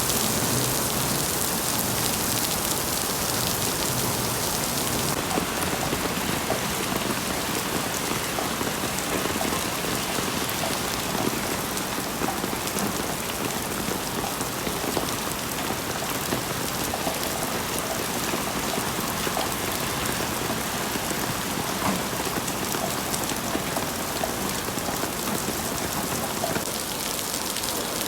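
Heavy rain falling in a steady, dense hiss with many small drop impacts, a little softer in the highs after about five seconds.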